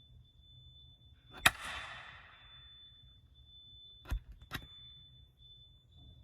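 Three sharp clicks of a fire alarm pull station's switch button being pushed in and out by finger: one about a second and a half in, trailed by a short hiss, then two half a second apart near the end. The pull station is suspected faulty and does not trip the alarm. A faint steady high-pitched tone sounds underneath.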